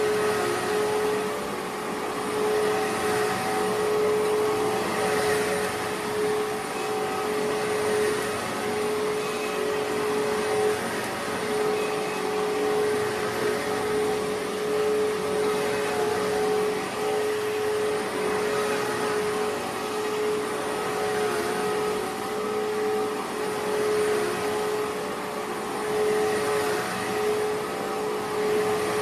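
An electric appliance motor running steadily, with a constant whine over a rushing of air.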